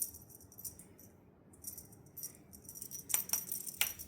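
A jingling cat toy shaken and batted in play, rattling in bursts, with three sharp clicks a little after three seconds in.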